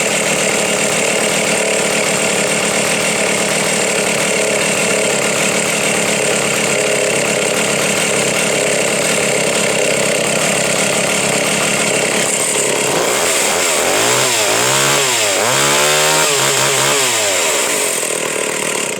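Stihl 045 AV Pro two-stroke chainsaw running hard and steadily. Near the end it is revved up and back down about three times.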